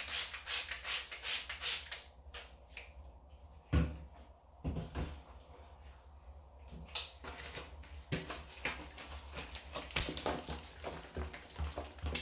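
Cleaning the inside of a plastic garbage can: a run of quick rasping strokes, then a quieter stretch with a couple of dull thumps about four seconds in, then more scratchy strokes and light taps.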